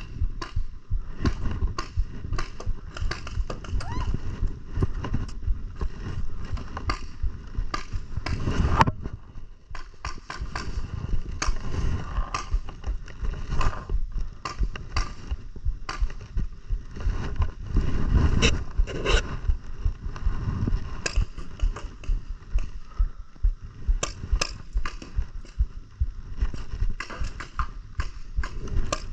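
Paintball markers firing in scattered sharp pops over a rough rumble of movement and wind on the microphone as a player moves and shoots.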